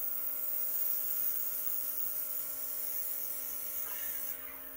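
Luminess airbrush makeup system spraying onto a face: the small compressor hums steadily while air hisses from the airbrush gun. The hiss stops about four seconds in, leaving the compressor hum.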